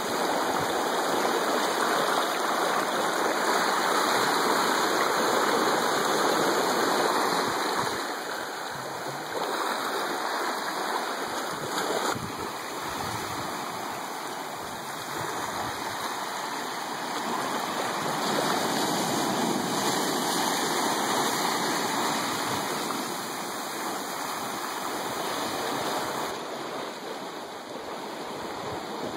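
Small waves washing up over sand and around rocks at the shoreline: a continuous rushing of surf that swells and eases. It is loudest in the first several seconds and softer after.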